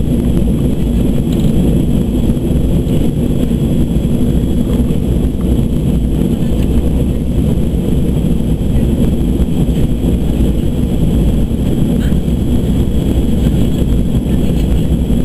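Cabin noise of a Boeing 737-200 in flight: the steady low drone of its Pratt & Whitney JT8D turbofan engines and the rush of air past the fuselage, with a thin steady whine above it.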